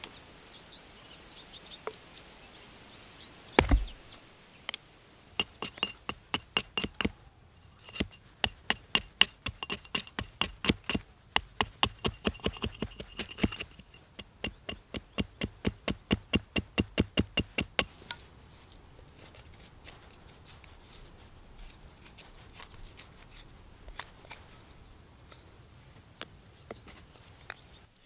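Small hatchet carving a stick against a log: one heavy blow, then a long run of quick, sharp strikes, about four or five a second, that stops, leaving only scattered light taps.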